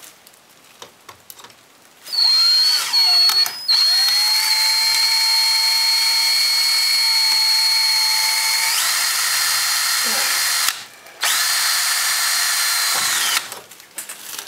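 Power drill running in bursts as it bores a screw hole into thin, bendy sheet-metal stove pipe. It starts about two seconds in, stops briefly, runs steadily for about seven seconds, pauses, then runs again for a couple of seconds.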